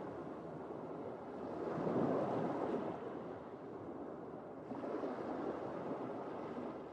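Ocean waves washing in and drawing back, a steady rushing noise that swells and falls twice.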